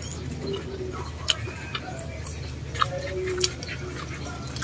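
Close-up chewing of fried dynamite lumpia, a crispy chili spring roll, with a handful of sharp, separate crunches spread through the few seconds.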